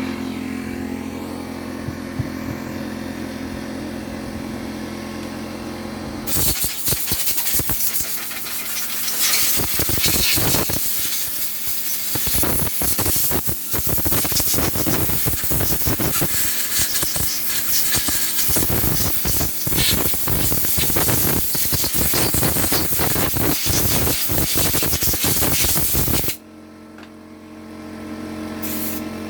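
Compressed air blowing debris out of a chainsaw: a loud, rough hiss that starts about six seconds in, runs for about twenty seconds and cuts off suddenly. A steady machine hum sits under it before and after.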